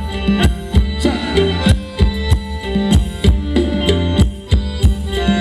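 Live band playing Thai ramwong dance music, loud. A quick, steady drum beat runs over deep bass and held, sustained notes.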